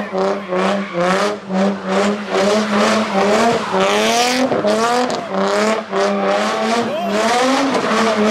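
Nissan 350Z's V6 engine revving hard while the car spins donuts, its pitch rising and falling over and over with tires screeching against the asphalt.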